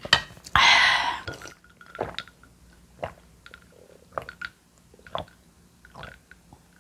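A person chewing a mouthful of food, with wet mouth clicks and smacks at irregular intervals. A louder, longer noisy stretch comes about half a second in.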